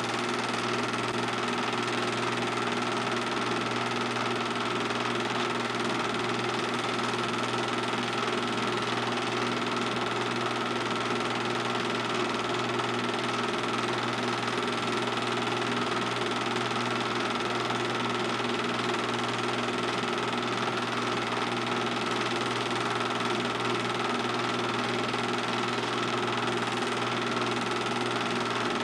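Film projector running steadily: a constant mechanical whir with a steady hum, unchanging throughout.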